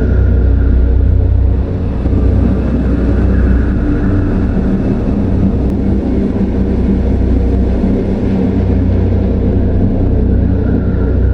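Horror-style haunted forest ambience: a loud, steady deep rumbling drone, with a faint high eerie tone swelling in and out a few times.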